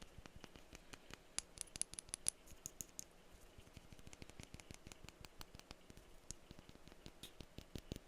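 Rapid, quiet tapping on glass perfume bottles. Between about a second and a half and three seconds in, a run of taps gives brighter, high-pitched glassy clinks.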